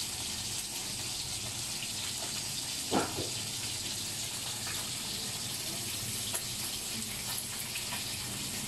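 Steady hissing noise, with one short, louder sound about three seconds in.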